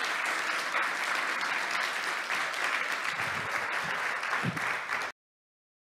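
Audience applauding steadily, then cut off suddenly about five seconds in.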